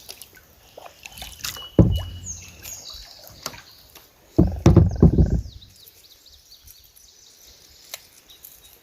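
Water splashing and sloshing against a kayak as a hooked smallmouth bass is landed, with a sharp knock about two seconds in and a louder stretch of splashing about halfway through.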